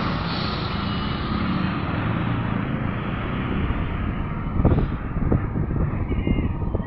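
A car driving slowly along a rough street, with steady engine and road noise. About two-thirds of the way in, irregular low thumps join it.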